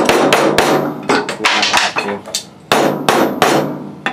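Claw hammer striking a wooden block held over a new ball bearing, driving the bearing into its seat in the electric motor's end bell. The blows come in quick runs of several a second, with short pauses between runs.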